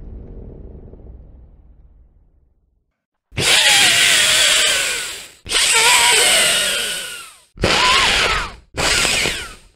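Creature vocal sound effect: four harsh, raspy screeches with wavering, gliding pitch. The first two last about two seconds each and the last two are shorter. They come after a low sound that fades out over the first two seconds.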